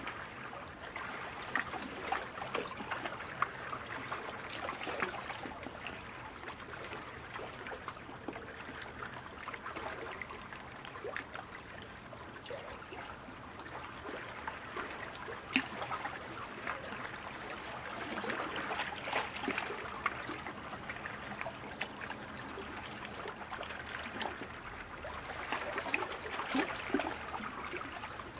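Water splashing and trickling around sprint canoes as paddles strike the water, with many small irregular splashes over a steady wash.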